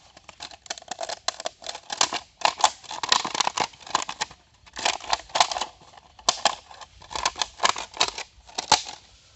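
Knife cutting through a thin plastic bottle, the plastic crackling and crinkling in quick clusters of short scrapes and clicks.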